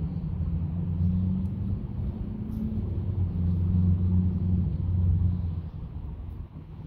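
A motor vehicle's engine running close by, a low rumble that swells and fades away near the end.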